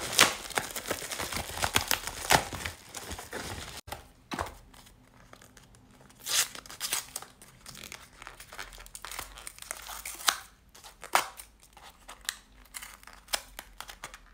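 Packaging being opened by hand: irregular crinkling and tearing, dense at first and then in scattered louder bursts.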